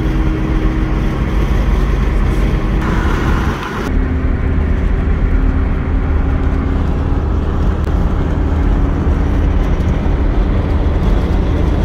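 A moving car's engine and road noise, heard from inside the cabin: a steady low rumble with a steady hum. About four seconds in the loudness dips briefly and the hum settles slightly lower in pitch.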